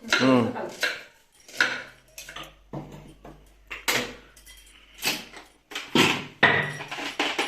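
Kitchen utensils and dishes clinking and clattering as food is prepared, in a string of separate sharp knocks.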